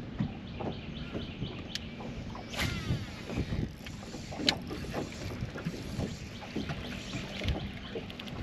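Water slapping against a bass boat's hull and wind on the microphone, with a few sharp clicks, the loudest about four and a half seconds in.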